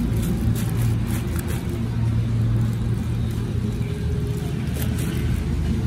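A steady low rumble and hum from some running machine, with light crinkling of clear plastic packaging being handled over it.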